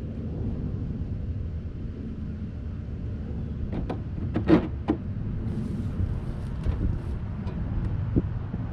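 Plastic sink drain parts being handled and fitted: a quick cluster of clicks and knocks about four seconds in, then a few lighter taps. A steady low rumble sits underneath.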